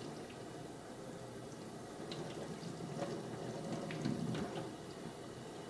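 Kitchen faucet running into the sink, the stream splashing on hair and hands as dreadlocks are soaked under it. Small irregular splashes stand out, a little louder about four seconds in.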